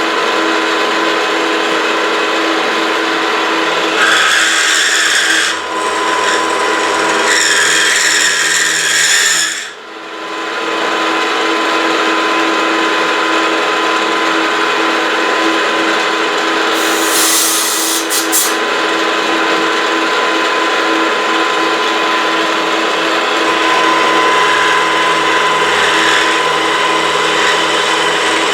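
Milling machine hogging out a pocket in a metal block with a 3/4-inch high-speed-steel end mill: a steady, loud cutting noise over the spindle's hum, dipping briefly about ten seconds in.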